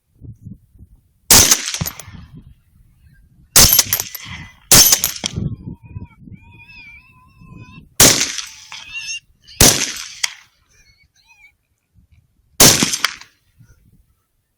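Six rifle shots fired at wild hogs, spaced one to three seconds apart, each a sharp crack with a short tail. A faint wavering high call comes between the third and fourth shots.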